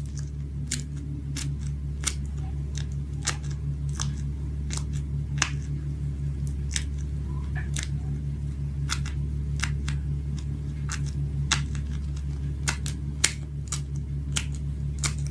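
A homemade pop-it fidget toy of paper bubbles under clear plastic being pressed by hand. It gives short, crisp clicks and pops, about two a second, over a steady low hum.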